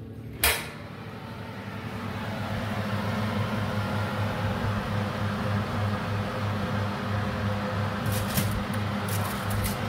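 Hotpoint oven door clicking open, then the oven's fan motor humming steadily with a pulsing low tone that swells as the door swings wide. A few light clicks near the end as onion rings are turned on the hot oven rack.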